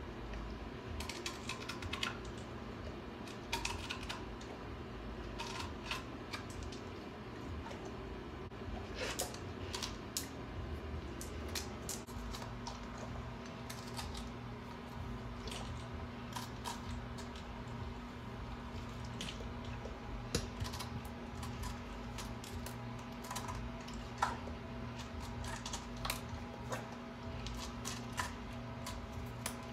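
A dog crunching and chewing raw celery sticks: irregular crisp snaps and clicks, over a steady low hum.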